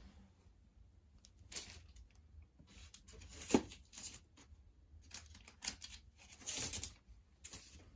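Vinyl records and their paper and plastic sleeves being handled: intermittent rustling and sliding as a record is worked back into its sleeve and jacket, with a short knock about three and a half seconds in and a longer rustle near the end.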